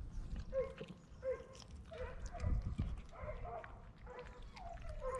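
An animal's short, faint calls, one about every half second, some falling in pitch.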